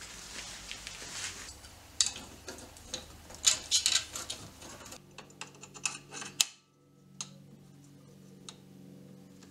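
Steel key being inserted and turned in a handmade steel warded box lock: a run of light metallic clicks and scrapes, loudest in the first half, with a sharp click about six seconds in and only a few faint clicks after.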